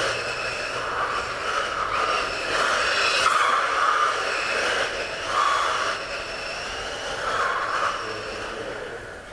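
Tamiya M05 Ver.II PRO radio-controlled cars' electric drivetrains whining as they lap the track, the whine swelling and fading several times as the cars pass.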